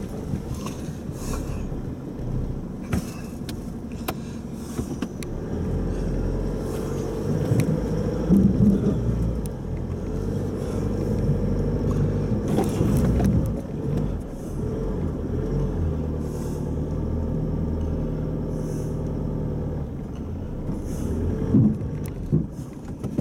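Four-wheel drive's engine working at low speed as it crawls over rocks on a rough track, its note rising and falling, with scattered knocks and rattles.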